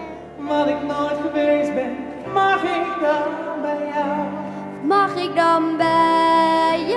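A woman singing solo into a microphone over instrumental accompaniment, with several long held notes.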